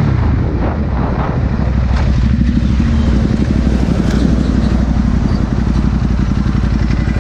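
Ducati motorcycle engine running at low revs with a steady, fast pulsing beat as the bike rolls slowly.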